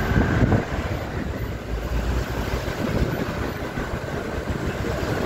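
Steady low rumble of a car's engine and tyres heard from inside the car as it creeps through slow city traffic.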